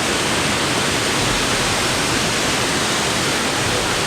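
Steady, loud rushing of the Li Phi waterfall's rapids on the Mekong River, an even wash of falling water with no breaks.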